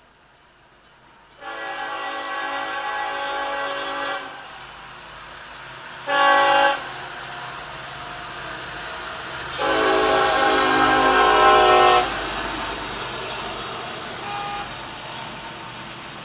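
Norfolk Southern diesel locomotive's multi-note air horn sounding three blasts: long, short, long. A lower rumble of the train runs underneath.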